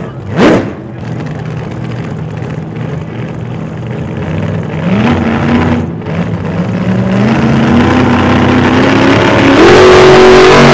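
A sharp whoosh about half a second in, then an engine revved up in stages, each time climbing to a higher speed and holding there, getting louder toward the end.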